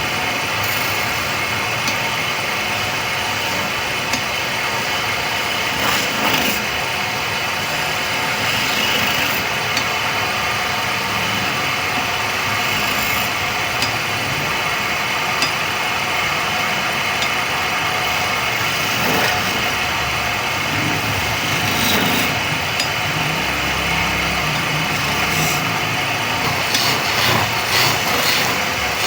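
Wood lathe running steadily, a constant machine sound with a few faint ticks.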